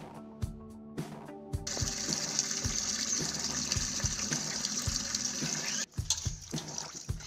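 Water pouring from an outdoor tap into a metal bucket: a steady rushing splash that starts about two seconds in and cuts off abruptly near six seconds. Background music with a steady beat runs underneath throughout.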